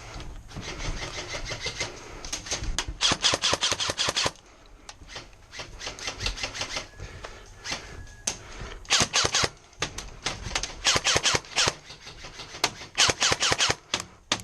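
Airsoft guns firing in rapid full-auto bursts. There is a long burst about three seconds in, then several shorter bursts through the second half, with scattered single shots between.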